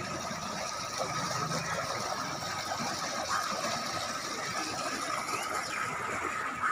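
Muddy floodwater of the swollen Godavari rushing and churning past the riverbank: a steady rushing noise with a constant thin high tone running over it.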